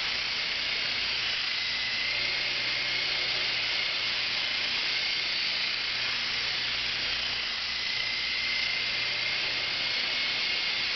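Small coaxial indoor RC helicopter in flight: the steady whine of its electric motors with rotor hiss, the pitch wavering slightly as it manoeuvres.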